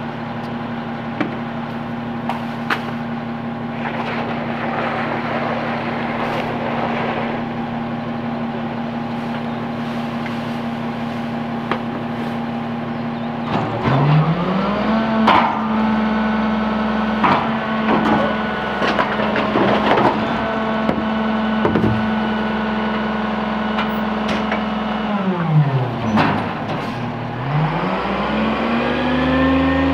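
Peterbilt 320 garbage truck's diesel engine idling steadily, with metal clanks and knocks as a trash can is handled and banged against the McNeilus rear-loader hopper. About halfway through the engine speeds up and holds a raised speed while the can is dumped into the hopper, with more loud clanks. Near the end it drops back, then rises steadily as the truck pulls away.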